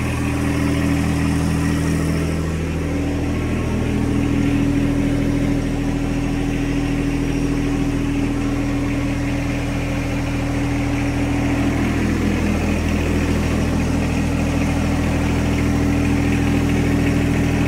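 A John Deere sub-compact tractor's three-cylinder diesel engine running steadily at idle.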